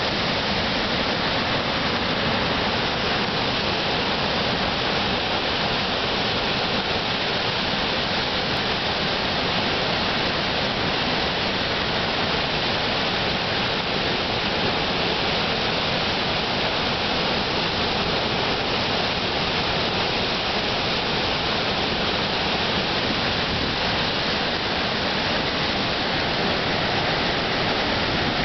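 Huilo-Huilo waterfall on the Fuy River: a steady rush of falling water.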